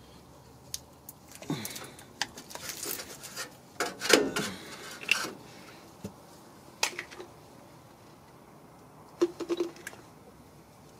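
Scattered metallic clicks and scrapes as the greased slide pins and caliper bracket of a Ford F-150 rear disc brake are handled and fitted, busiest in the first half, then a few more clicks near the end.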